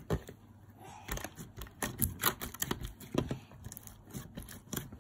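Hands squeezing and pressing glossy slime mixed with makeup, giving irregular sticky clicks and pops several times a second. There is a brief quieter spell about half a second in.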